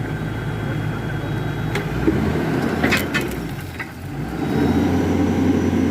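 Hyundai Robex 220-7 excavator's diesel engine running, its note shifting as load comes on about two seconds in and again near the end, with a few sharp knocks along the way.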